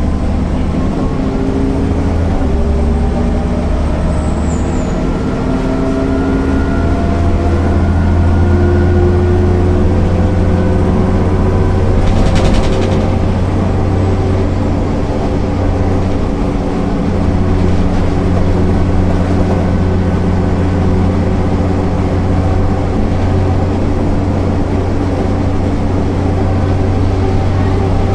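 MAN NL 262 city bus's diesel engine pulling under way through its ZF automatic gearbox. The engine note climbs over the first half with a few drops as the gears change, then holds fairly steady. About halfway through there is a short hiss.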